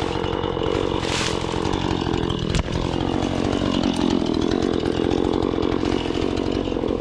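Chainsaw running steadily, its engine pitch sagging and recovering between about two and five seconds in. A single sharp click sounds about two and a half seconds in.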